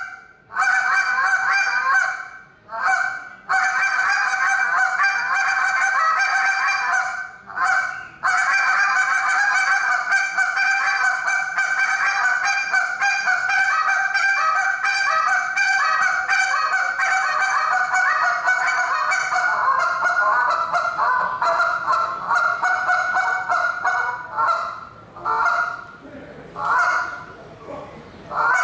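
Goose call blown in a contest routine: a few separate honks at first, then a long, unbroken run of fast, short notes, ending in a few spaced-out notes.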